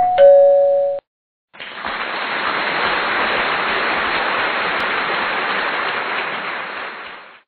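A short two-note electronic chime, a higher note stepping down to a lower one. Then, after a brief gap, about six seconds of steady hissing noise that fades in and fades out.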